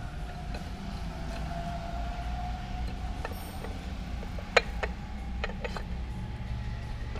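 A few sharp metallic clicks and taps about four and a half to six seconds in, the first the loudest, as a Briggs & Stratton LO206 engine's metal side cover is worked onto the crankcase over the crankshaft. A steady low workshop hum runs underneath.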